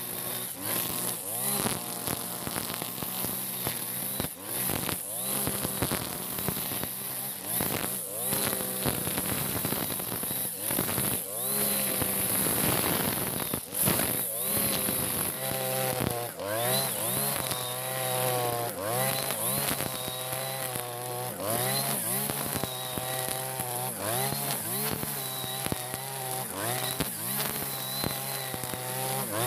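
Backpack brush cutter engine running at high revs while cutting grass. Its pitch repeatedly dips and climbs as the spinning head bites into the grass and clears it. The machine has just been serviced and runs with full power.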